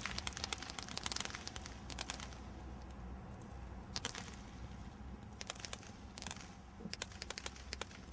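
A 300-shot combination roman candle firing: rapid small pops as it launches its stars, dense for the first second or so, then in shorter clusters with gaps between.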